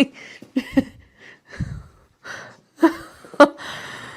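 A person gasping and breathing hard, with short voiced gasps and breaths in reaction to a chiropractic neck adjustment just made.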